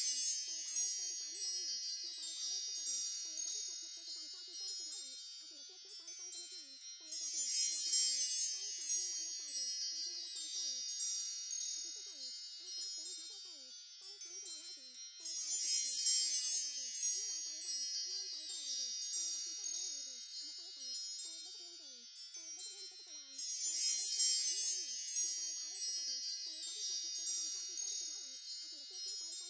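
Chimes tinkling in a bright high cluster that swells about every eight seconds and fades away between swells.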